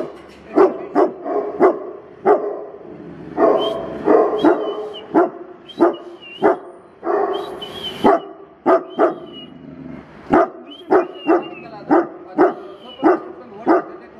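Tibetan mastiffs barking in a long run of loud, repeated barks, about one to two a second, with a thin wavering whine between some of them.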